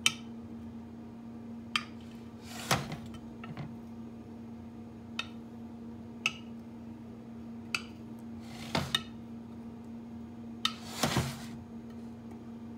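A butter knife clinking and scraping against a glass baking dish while it swirls a cream cheese topping into brownie batter: about ten short, irregular clinks, over a steady background hum.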